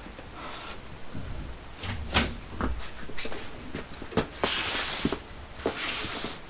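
Scattered knocks and clatters, with two short hissing rushes, one about four and a half seconds in and another near the end.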